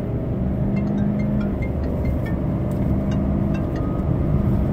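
Ford 6.7L Power Stroke V8 turbo-diesel in a 2017 F-250 Super Duty under full throttle, pulling hard as the truck accelerates toward 60 mph, heard from inside the cab. The engine note holds steady and then steps in pitch as the automatic shifts up.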